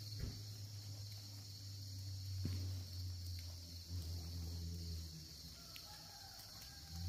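Steady high-pitched chorus of singing insects such as crickets over a low steady hum, with a couple of sharp clicks or snaps, one about two and a half seconds in.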